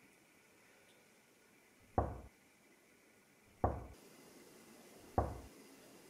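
Three single knocks, about a second and a half apart, on a wall or door to get someone's attention.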